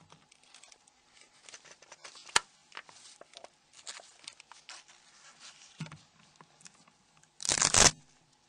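Gloved hands handling a Nokia N93 phone's metal casing: faint scattered rubbing and scratching, a sharp click about two and a half seconds in, and a louder half-second rasp near the end.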